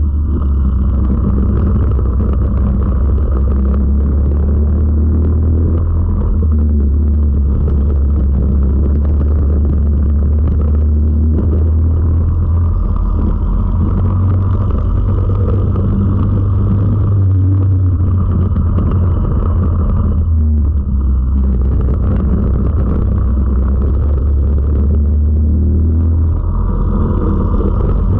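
Four-stroke racing kart engine running hard, heard from on board the kart, its pitch shifting several times as engine speed changes through the corners.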